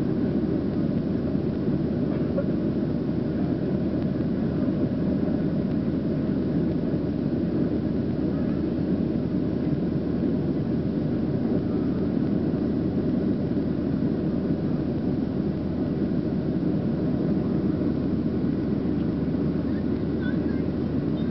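Steady engine and airflow noise of a Boeing 737 jet airliner heard inside the cabin during the climb after takeoff, a deep even rush with faint steady tones above it.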